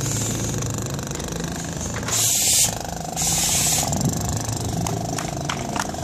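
Two hissing breaths drawn through a firefighter's SCBA air regulator, each about half a second long and about a second apart, over a steady low hum. Light clicks come near the end.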